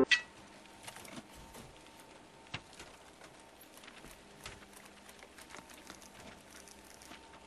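Background music cuts off abruptly at the start, leaving a quiet background with faint, scattered soft clicks and taps.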